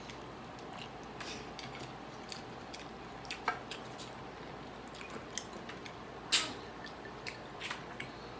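Close-up eating sounds of grilled chicken eaten by hand: scattered wet smacks and clicks of chewing and fingers pulling the meat apart, the loudest about six seconds in.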